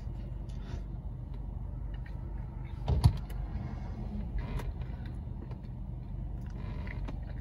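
Steady low hum inside a car cabin, with small mouth and chewing noises and one sharp thump about three seconds in.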